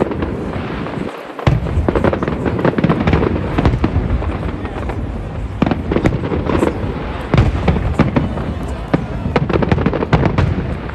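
Fireworks going off in quick succession: a steady string of sharp bangs and crackles.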